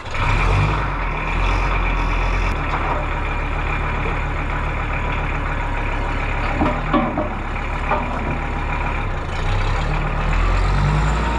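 Kubota tractor's diesel engine running steadily while the front loader's hydraulics raise a load on pallet forks, with a few brief squeaks about two-thirds of the way through. The engine grows louder near the end.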